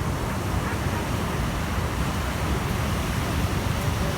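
Big storm waves breaking and washing up the beach in a steady rush, with wind rumbling on the microphone.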